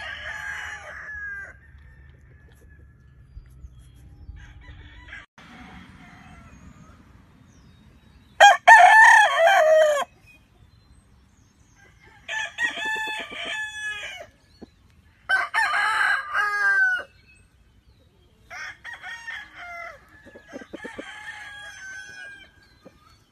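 Roosters crowing one after another, about five crows in turn with pauses between, the loudest about eight seconds in.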